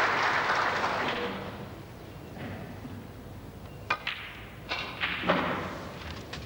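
Audience applause dying away in the first second or so. Then a sharp click as the snooker cue strikes the cue ball, and another click about a second later as it hits the object ball, followed by a louder knock as the ball is potted.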